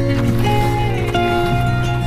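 Background music: held notes over a steady low bass, the upper notes changing every half second or so.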